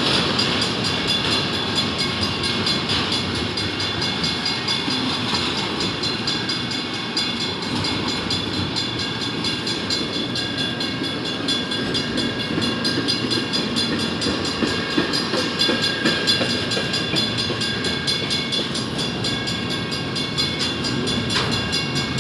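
Double-stack intermodal well cars of a freight train rolling past at close range: a steady rumble and rattle of wheels on the rails, with thin steady high tones riding over it.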